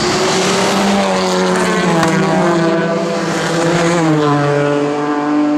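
Engine of a Fiat 500-based racing prototype running hard on track, its note climbing gently and then dropping about four seconds in before holding steady.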